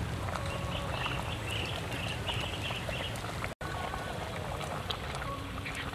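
A metal ladle stirring soup in an aluminium pot, with liquid sloshing and light metal clicks, over a steady low rumble. Birds call in the background with short chirps. The sound drops out for an instant a little over halfway through.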